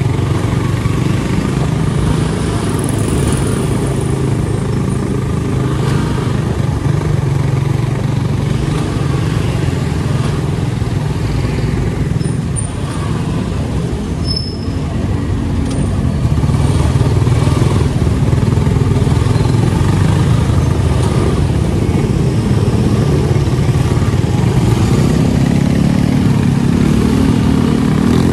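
Motor vehicle engine running under way, with road and traffic noise. It gets louder about halfway through, and near the end the engine note climbs as the vehicle speeds up.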